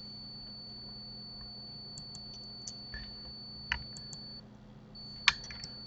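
Scattered clicks of a computer keyboard and mouse: about ten short key and button presses at uneven intervals, the loudest a little before the end, over a steady faint hum and a high thin whine.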